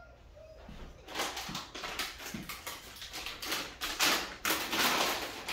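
A dog whines briefly, asking for a treat. From about a second in comes a busy run of scuffling and rustling noises, loudest about four to five seconds in.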